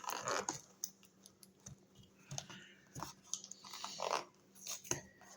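Cardboard box being opened by hand: irregular crinkles, scrapes and clicks of the flaps and packing, with a louder rustle at the start and again about four seconds in.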